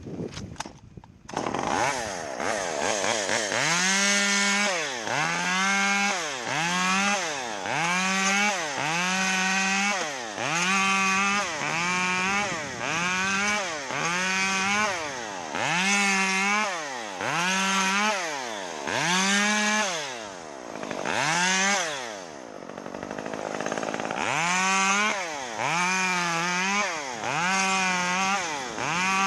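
Chainsaw used in palm tree trimming, starting up about a second in and then revved up and down repeatedly, roughly once a second, with a short drop near the end.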